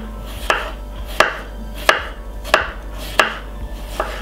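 Kitchen knife slicing a cucumber on a wooden chopping board: about six even cuts, one every two-thirds of a second or so, each ending in a sharp knock of the blade on the board.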